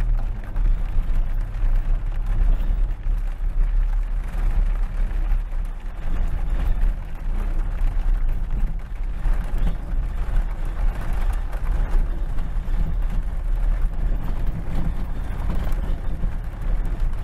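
Vehicle engine running with a deep, uneven rumble.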